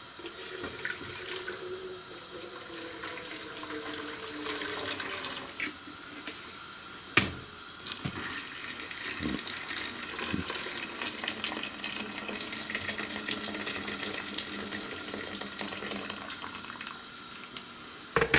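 Just-boiled water poured in a steady stream from an electric kettle into a large non-stick pot. A few sharp knocks break in, the loudest about seven seconds in, and there is another clunk near the end as the kettle is moved back.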